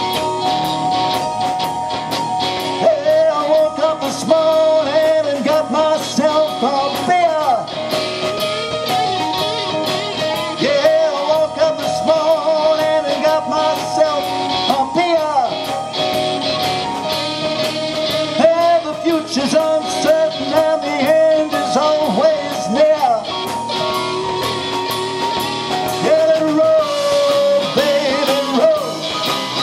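Live rock band of guitars, keyboards, bass and drums playing an instrumental passage, with a lead line of long held notes that bend in pitch over the band.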